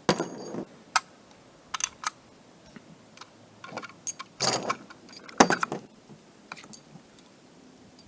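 Metallic clicks and clinks of large .408 CheyTac cartridges being handled and pushed into a rifle magazine, with three short scraping rattles near the start, about four and a half seconds in, and about five and a half seconds in.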